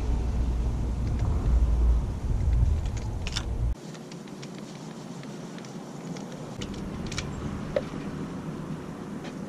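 Loud low outdoor rumble that cuts off abruptly about four seconds in, leaving a quieter background with a few faint clicks and ticks.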